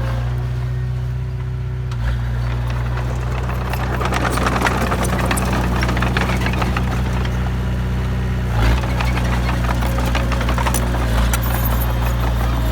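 Heavy vehicle engine running steadily, with a rattling clatter of metal and material setting in about three and a half seconds in and a single thump near the middle.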